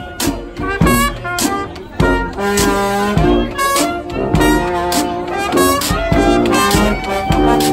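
Traditional New Orleans jazz band playing live: trumpet and trombone over a tuba, with a steady beat and no singing.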